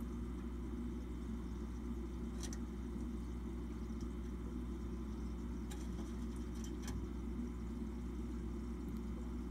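Aquarium filter motor running with a steady low hum, and a few faint clicks about two and a half, six and seven seconds in.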